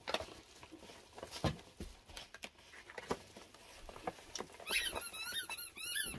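Rustling and crinkling of a padded paper mailer being handled and opened. About three-quarters of the way in, a dog's squeaky toy starts squeaking in a quick run of high squeaks.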